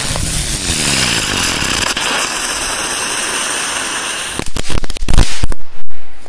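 A crackling 'rose' ground-spinner firework burning with a loud hiss and a wavering whine as it spins. From about four and a half seconds in it goes off in a quick string of sharp bangs, the last the loudest, because this type of spinner explodes at the end.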